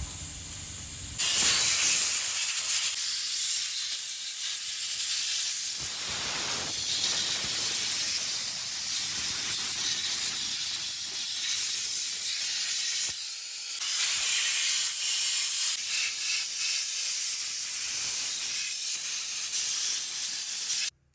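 Compressed air hissing loudly and steadily, dipping briefly about 13 seconds in and cutting off suddenly at the end.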